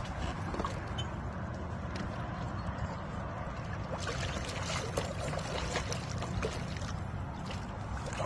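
Water sloshing and splashing against the side of a boat as a large blue catfish is held in the river and let go. A steady low rumble runs underneath.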